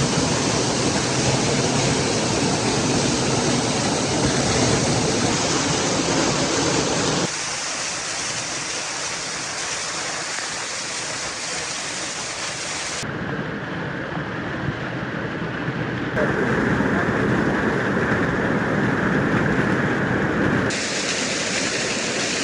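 Steady rush of a waterfall's falling water. Its loudness and tone shift abruptly several times: fuller and louder at first, thinner from about 7 s, then duller and muffled between about 13 and 21 s.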